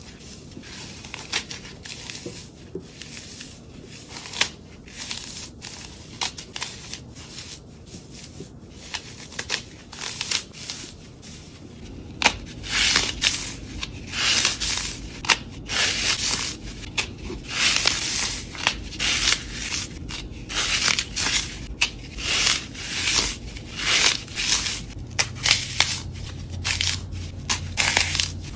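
Hands crushing and crumbling dry florist's floral foam blocks: soft crumbly crackling at first, then from about twelve seconds in, louder crisp crunches coming more than once a second as fingers squeeze into and break the blocks.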